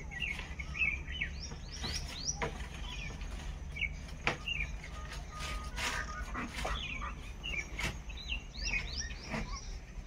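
A group of common mynas calling, a busy run of short chirps and whistles with sharp clicks mixed in, over a steady low hum.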